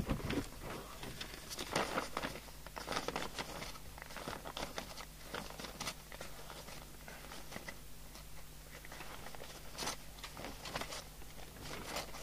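Paper sheets on a clipboard being leafed through: irregular rustling and flapping of pages, over a faint steady low hum.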